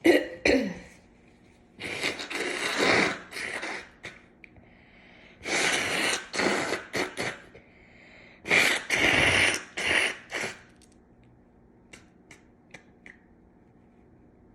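A woman sneezing hard three times in a fit, each sneeze about two seconds long and coming about every three and a half seconds, after a short sharp breath at the start. These are allergy sneezes, brought on by tickling a nose clogged from cat allergy with a cat whisker.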